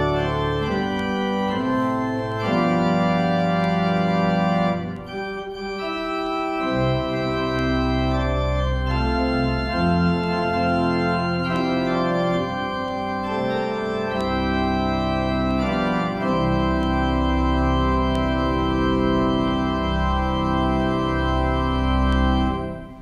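Organ playing slow sustained chords over deep bass notes, then stopping near the end with a brief die-away.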